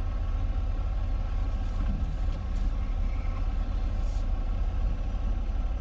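Tractor-trailer's diesel engine running at a steady speed, a deep, even drone.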